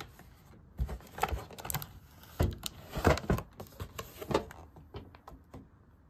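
Clear plastic and cardboard retail box holding a metal paint-can tin, handled and turned over in the hands: a run of irregular clicks, knocks and plastic crackles, loudest in the middle.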